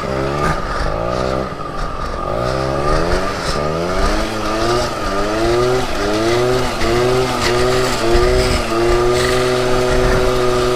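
Aprilia SR 50 Motard scooter's 50cc two-stroke engine with a LeoVince TT exhaust, revved up and down in quick rising sweeps about once a second while drifting with wheelspin on grass, then held at high revs near the end.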